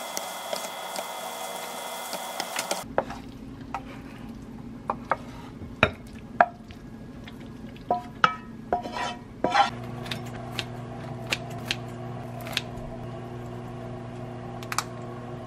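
Curry sauce and tofu noodles sizzling in a frying pan as a wooden spatula stirs them. After about three seconds the sizzle stops, and the wooden spatula knocks and scrapes against the pan and a ceramic bowl as the noodles are served out, over a steady low hum.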